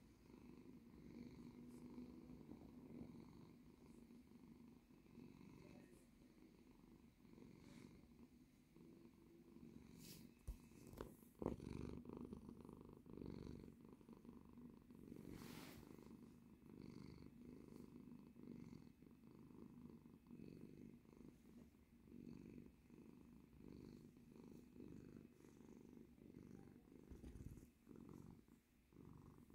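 A tabby cat purring steadily and softly, close up. A short knock sounds partway through.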